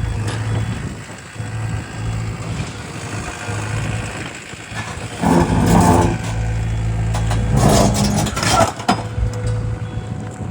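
Liugong 909ECR excavator's diesel engine running steadily, growing louder twice, about halfway through and again a couple of seconds later.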